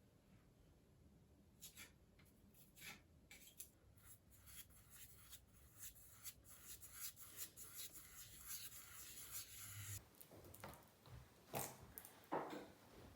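Faint scrubbing and rubbing of a cloth or brush on a surface, with scattered light clicks from objects being handled and two louder knocks near the end.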